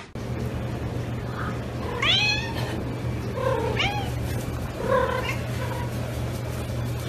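Domestic cat meowing three times, about a second apart, each call rising in pitch, over a steady low hum.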